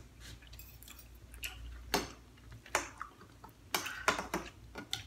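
Metal spoons and forks clinking and tapping against bowls as two people eat: a scattering of about half a dozen sharp, irregular clicks.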